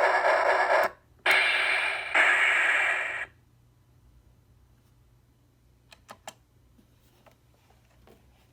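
Steam-locomotive model alarm clock playing a recorded steam-train sound effect through its small speaker: a hissing noise in three bursts that cuts off suddenly about three seconds in, followed by a couple of faint clicks.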